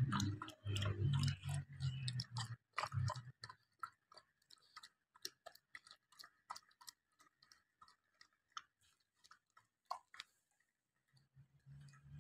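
Bully kutta dog eating from a bowl: irregular wet chewing clicks and crunches, scattered through, with a low rumble over the first few seconds that comes back briefly near the end.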